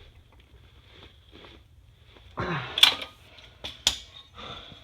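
Handling noises from work on a car's rear suspension: faint clicks, then two sharp metallic knocks about three and four seconds in as the trailing-arm parts are worked into place.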